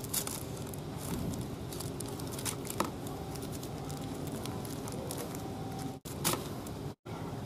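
Plastic bait sachets crinkling as they are handled and snipped open with scissors, with a few sharp clicks of the blades.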